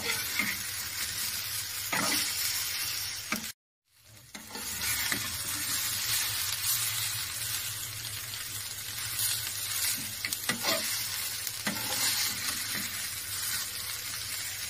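Sliced chicken sausage, peas and cauliflower sizzling as they fry in a pan, with a metal spatula scraping and knocking against the pan now and then as it stirs. The sound cuts out briefly about three and a half seconds in.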